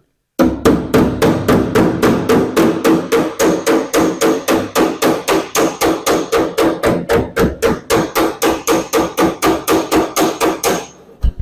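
Hammer blows on the steel rear body panel of a 1976 Galant hardtop, a fast even run of about five strikes a second, each with a metallic ring, stopping shortly before the end. This is panel beating to straighten a dented, previously bogged section.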